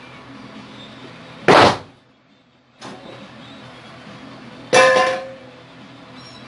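A plywood stand knocks down onto a workbench, then a stainless steel bowl drops into its round hole with a loud metallic clang that rings briefly.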